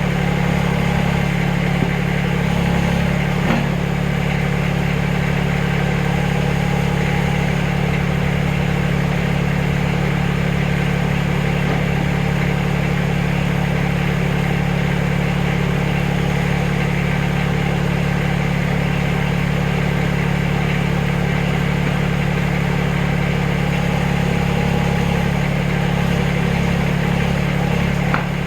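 Backhoe engine running steadily at a constant speed, with a couple of faint knocks in the first few seconds.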